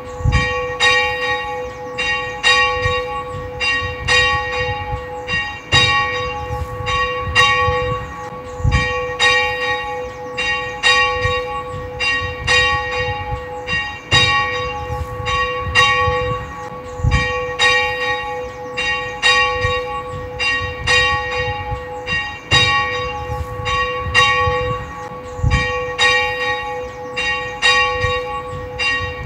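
A church bell tolling, struck again and again in a quick, even rhythm, the same ringing tone carrying on between strikes.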